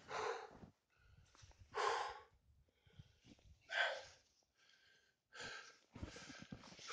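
A person breathing hard: four short, breathy exhales about two seconds apart, with near silence between.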